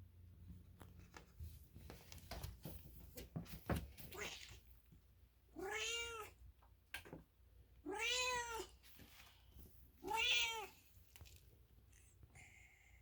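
American Ringtail cat meowing: three clear, drawn-out meows about two seconds apart, each rising and then falling in pitch, with a fainter call just before them. Soft clicks and rustles come in the first few seconds.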